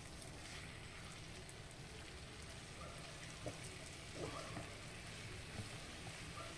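Faint, steady sizzling and bubbling of chicken and vegetables in a thick, caramelizing soy-and-molasses sauce in a frying pan over raised heat, with a few soft scrapes from a silicone spatula stirring it.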